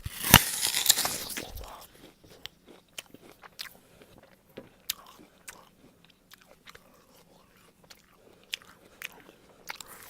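A person biting into a juicy, crisp Golden Delicious apple. One loud crunching bite comes at the start and lasts about a second and a half, followed by scattered crunches and wet clicks of chewing.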